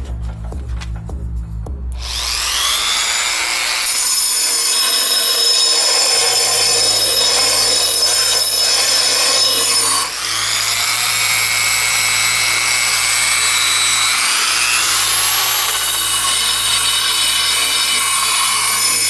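Background music, then about two seconds in a power sander with 80-grit paper whines up to speed and runs steadily, grinding out the slide slots of a dust-collection blast gate to tighten the fit of its slider. It drops out briefly about ten seconds in and whines back up to speed.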